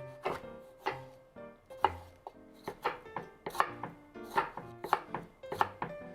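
Knife chopping food on a cutting board, a quick, uneven run of sharp strokes, about two to three a second.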